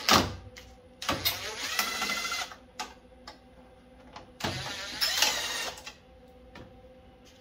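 A sharp click, then a cordless drill/driver whirring in two bursts of about a second and a half each, about three seconds apart, as it backs out the screws that hold a headlight.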